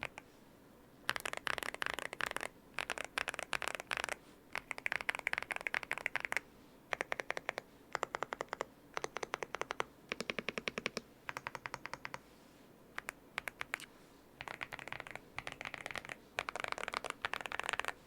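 Typing on an Aula F108 Pro mechanical keyboard with lubed WS Brown tactile switches and translucent keycaps: fast runs of key presses in bursts of a second or two with short pauses between, a muted, deep "thocky" clack from the foam- and tape-modded case.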